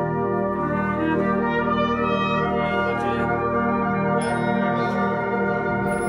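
Brass band of cornets, horns and tubas playing long, held chords.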